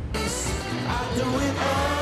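Pop music with singing over a steady bass.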